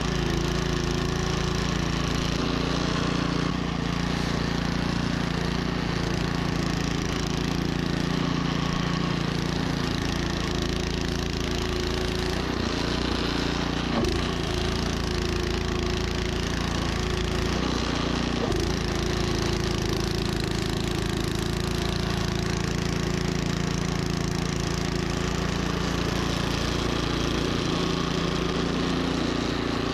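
Troy-Bilt snowblower engine running steadily under load, with a couple of brief knocks around the middle.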